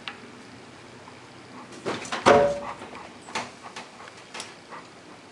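A car being let down from a hydraulic floor jack onto jack stands: a clunk with a brief squeak about two seconds in as the weight settles, then a few lighter metallic clicks.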